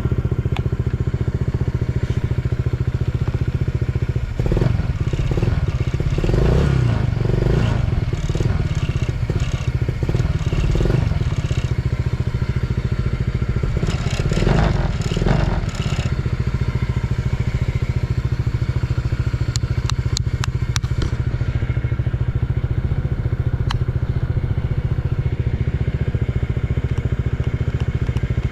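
Honda PCX125 scooter's single-cylinder fuel-injected engine, breathing through an aftermarket carbon/stainless full exhaust, idling, revved up and back down a few times about four to eight seconds in and again around fourteen to sixteen seconds in, then settling to a steady idle. It runs with no abnormal noise and revs up cleanly.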